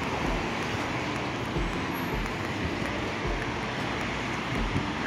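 Steady city street noise from road traffic, with soft low thumps every second or so.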